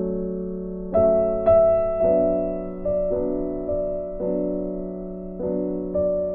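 Slow instrumental piano background music: chords and single notes struck every half second to a second, each ringing and fading, with the brightest notes about a second in.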